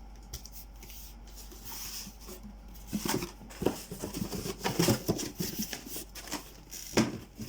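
A cardboard shoebox and its packaging being handled during unboxing: rustling and crinkling with a few sharp knocks, the loudest about seven seconds in.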